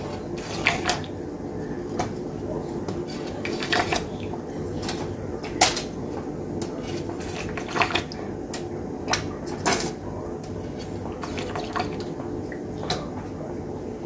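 Utensils clinking and tapping against a baking pan while jerk chicken pieces are basted, about a dozen sharp clinks at irregular intervals over a steady low hum.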